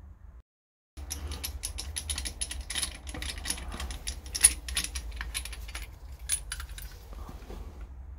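Irregular metallic clicking and clinking of hand tools and fittings being worked in a petrol engine's bay, from removing the spark plug leads and plugs; it begins about a second in, with one sharper clink partway through, over a low steady hum.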